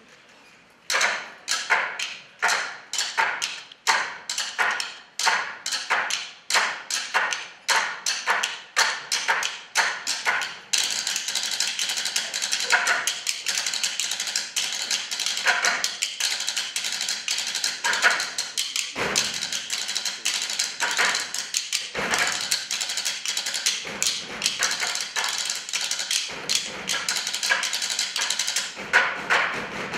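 Tabletop percussion: wooden spoons and sticks striking desk tops in rhythm. It starts about a second in as separate, evenly spaced taps, then thickens about ten seconds in into dense, fast drumming with louder accents.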